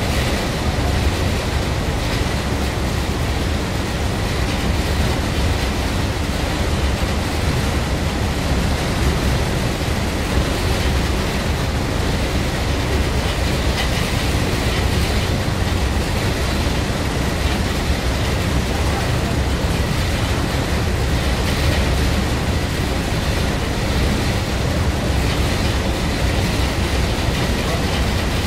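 Steady low rumble of a boat under way, with an even rushing noise of wind and water over it and no sudden events.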